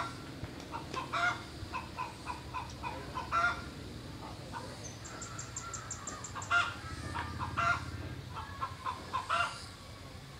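Domestic fowl calling in short, repeated notes, with a quick run of high ticks about five seconds in.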